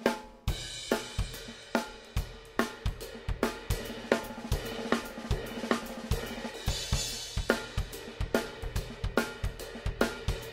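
Acoustic drum kit played with sticks: a steady groove of snare, bass drum, hi-hat and cymbal strikes.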